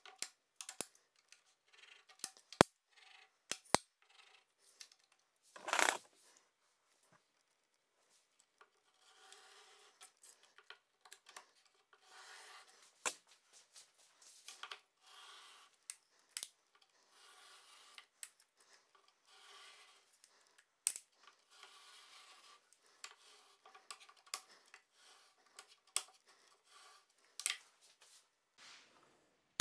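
Pencil lead scratching across plywood in a run of strokes while a tape measure is swung as a compass to draw an arc, with sharp clicks and taps from the tape measure's case and hook scattered through. One louder scrape comes about six seconds in.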